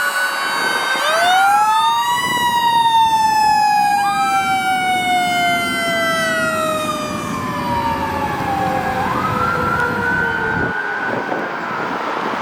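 Fire engine running a Federal Signal Q mechanical siren together with an electronic wail siren. The Q winds up about a second in and then slowly winds down. The wail rises and falls in long sweeps over it, with road noise underneath.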